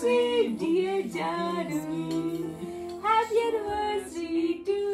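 A song playing: a woman sings long held notes over a steady accompaniment.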